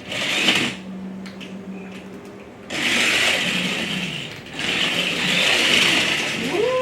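Toy remote-control monster truck's small electric motor whirring in bursts, louder for the last few seconds, as the truck spins a 360 donut.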